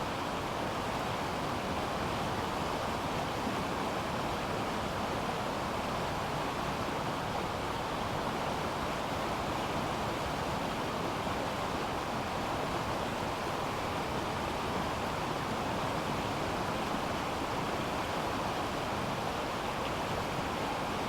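River water flowing in a steady, even rush, brightest in the middle range, without breaks or single splashes.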